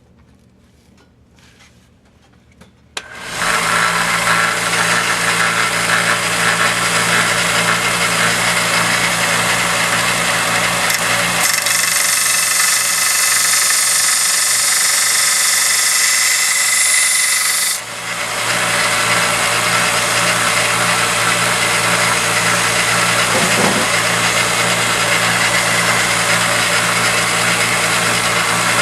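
Grizzly 1x30 belt grinder switched on about three seconds in, its motor and belt then running steadily. From about twelve to eighteen seconds a knife blade is held against the moving belt, adding a bright grinding hiss, after which the grinder runs on unloaded.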